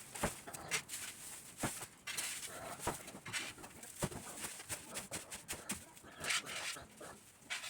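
Dry hay being gathered and pulled out of a pig's bedding: irregular rustling and crackling with occasional sharp knocks.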